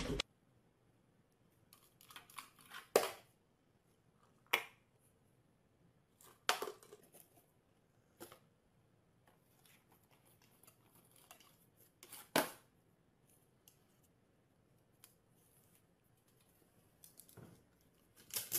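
A handful of short scratches and taps at irregular gaps, of cardboard being handled and pawed at by a dog, with near silence between them.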